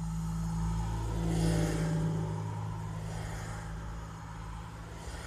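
A vehicle passing by, swelling to its loudest about one and a half seconds in and then fading away, over a steady low hum.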